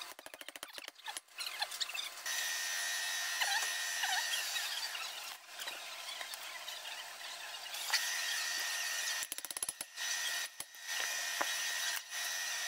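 Workshop power-tool noise: a steady whirring hiss with a thin whine, in two spells of several seconds, and bursts of rapid clicking between them.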